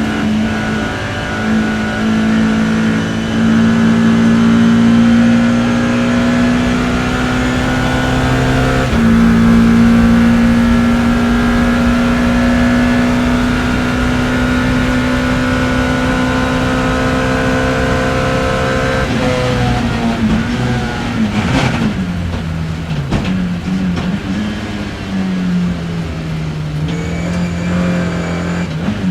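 BMW E30 M3's four-cylinder race engine heard from on board under hard acceleration. Its pitch climbs steadily, drops sharply with an upshift about nine seconds in, then climbs again in a long pull. About nineteen seconds in the revs fall away and run lower and uneven, rising and dipping.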